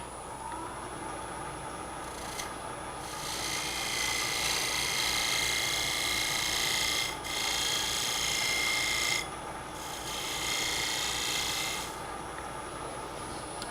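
Wood lathe running with a steady hum while a turning tool cuts the spinning hard maple lid down to size. The tool makes a hissing, shaving sound in three passes, starting about three seconds in and stopping near the end, with short breaks between them.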